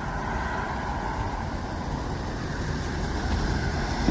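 Steady low outdoor rumble with a faint hum on top.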